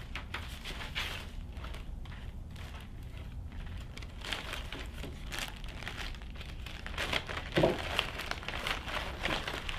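Plastic zip-top bag being opened and handled, with irregular crinkling and rustling of the plastic as supplies are pulled out of it, busier in the second half.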